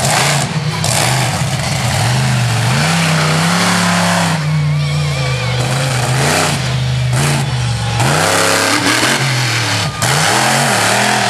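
Monster truck engine revving hard, its pitch rising and falling over and over as the driver blips the throttle and drives.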